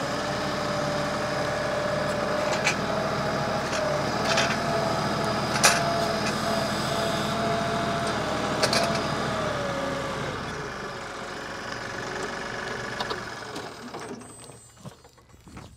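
Kioti compact tractor's diesel engine running as the tractor backs away, with a steady whine over the engine note for about ten seconds and a few sharp clicks. The sound then grows fainter as the tractor pulls away.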